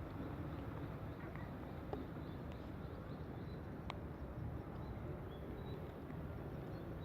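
Steady low outdoor noise, such as water and wind at a fishing spot, with faint short high chirps scattered through it and one sharp click about four seconds in.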